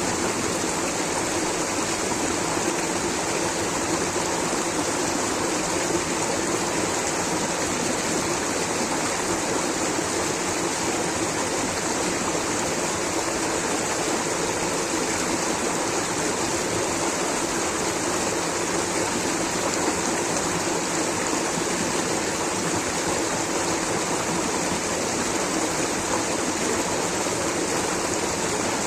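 Water rushing steadily over a small waterfall, a constant even hiss and splash with no breaks.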